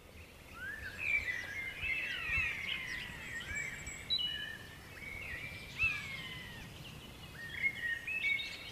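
Woodland birdsong: several birds chirping and whistling at once in short, overlapping gliding notes, over a low background rumble. It fades in over the first second.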